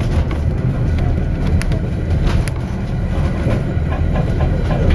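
Diesel-hauled passenger train running on its rails, heard from aboard: a steady low rumble with a few sharp wheel clicks.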